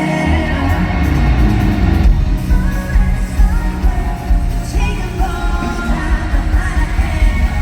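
Loud, amplified live pop-rock band music with singing; a heavy bass and drum beat comes in just after the start.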